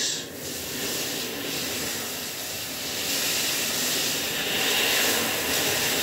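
Water spraying steadily from a handheld LED shower head, an even hiss that grows a little louder about halfway through.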